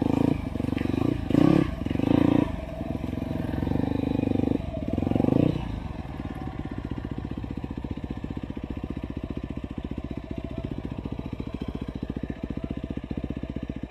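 Dirt bike engines on a slow trail ride, opened up in two short bursts of throttle in the first few seconds, then settling to a steady, even low-rev running.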